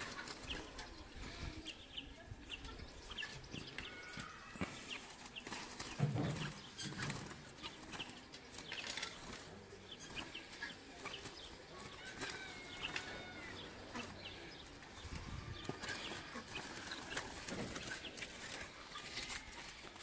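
Light metallic clicks and knocks of a wire bird-cage trap as its door is handled and set, with small birds chirping in the background. A dull thump about six seconds in is the loudest sound.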